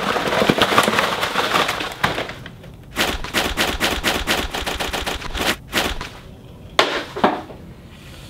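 A mailed parcel's paper and plastic wrapping being torn open and crinkled by hand: dense crackling at first, then a string of quick rustling strokes, and two last ones shortly before the end.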